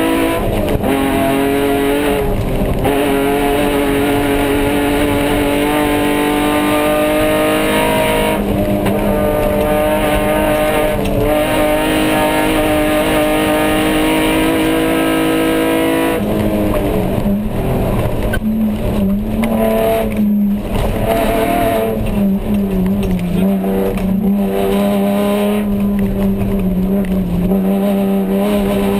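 Off-road race car's engine running hard under load, heard from inside the cabin. The note dips briefly a few times, turns uneven and broken for several seconds past the middle, then settles into a steady, lower pitch.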